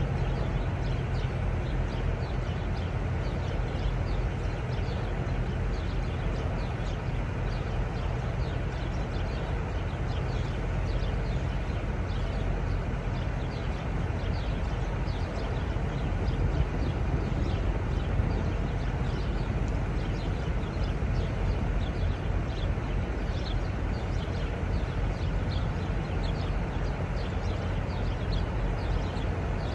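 Steady low drone of semi-truck diesel engines running in a truck stop lot, with frequent short, high chirps over it.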